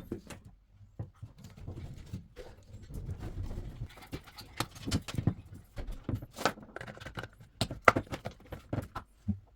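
Irregular clicks, taps and knocks of steering-wheel parts and plastic connectors being handled and fitted, with a low rubbing of handling between them.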